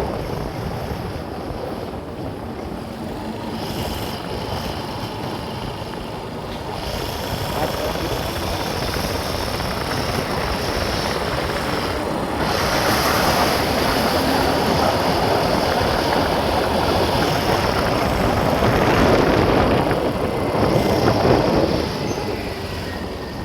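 A vehicle driving along a road: steady engine and road noise, growing louder about halfway through and easing off near the end.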